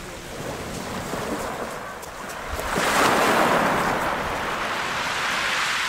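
Choppy sea water washing and wind buffeting the microphone, a steady rush that grows louder about three seconds in.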